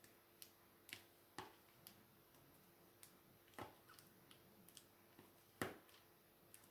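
Faint, irregular small clicks and taps of a diamond-painting drill pen picking up and placing drills on the canvas, about ten over the pause, the loudest near the end.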